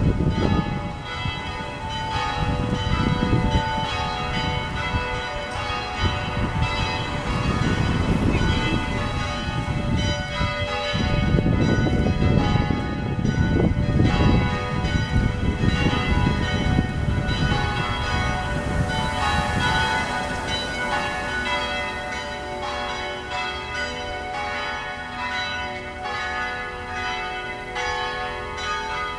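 St. Philip's Church bells ringing as a peal, with many overlapping strokes whose tones hang on and ring into one another. A low, surging rumble runs underneath.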